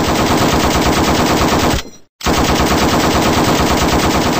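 Rapid machine-gun fire in two long bursts, with a short break about two seconds in.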